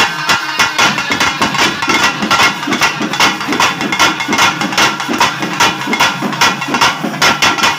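Pambai drums beaten with sticks in a fast, steady rhythm: a dense, even stream of sharp strikes, several a second.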